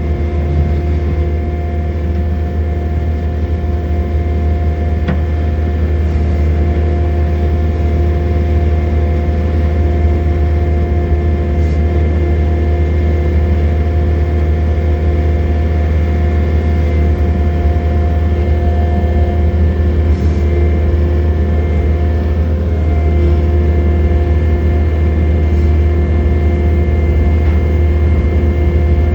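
John Deere 317 skid steer loader's diesel engine running steadily, heard from inside the cab, with a steady whine over the engine note.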